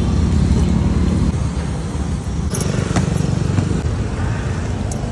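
Steady low rumble of a running motor or engine, with a few sharp clicks on top.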